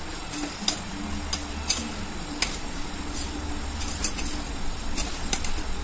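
Metal spoon stirring chicken in a stainless-steel pot, knocking and scraping against the pot's sides in irregular clinks, about ten in all, over a low steady hum.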